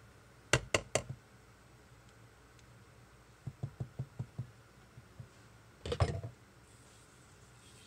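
Three sharp knocks, then a quick run of lighter taps, then a heavier clunk near the end: a stainless-steel stick blender being knocked and scraped clean over a crock pot and set down into a plastic pitcher.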